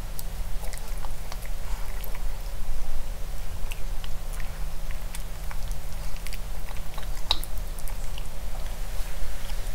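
A maltipoo puppy eating from a clear plastic bowl: chewing, with many short, irregular crunches and clicks, over a steady low hum.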